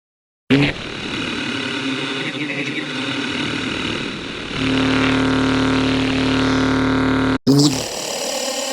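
A sampled spoken voice clip played back through a software sampler and stretched into a buzzing, droning texture. About four and a half seconds in it settles into a steady held tone. Near the end it cuts out for a moment and starts again.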